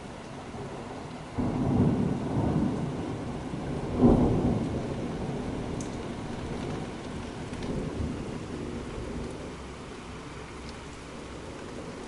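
Thunder from a severe thunderstorm over steady heavy rain. A low rumble starts suddenly about a second and a half in, a sharper clap comes about four seconds in, and the rumble then fades away over several seconds.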